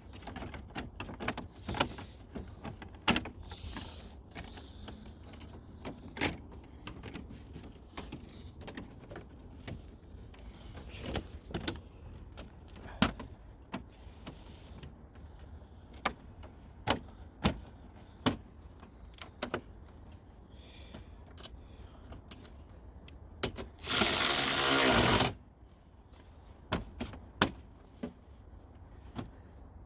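Scattered sharp clicks and knocks of hand tools and car parts being handled under the hood during reassembly, with one loud rasping burst lasting about a second and a half near the end.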